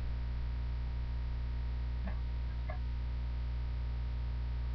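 Steady electrical mains hum picked up by the recording microphone, with two faint clicks about two seconds in and shortly after.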